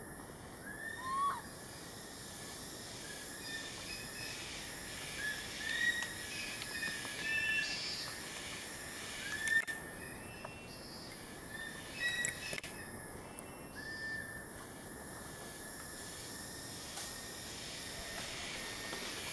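Short, high chirping calls from an animal, repeated irregularly a dozen or so times over a steady outdoor hiss; the chirps thin out and stop a little past the middle.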